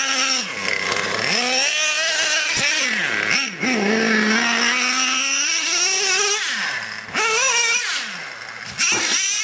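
Traxxas Revo RC monster truck's small two-stroke nitro engine revving hard and easing off again and again as the truck is driven over dirt jumps, its pitch rising and falling in repeated swoops. It dips briefly about three and a half seconds in and again around seven seconds.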